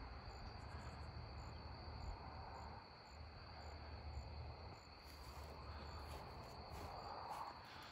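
Faint, steady chirring of crickets, a continuous high-pitched trill, over a low rumble.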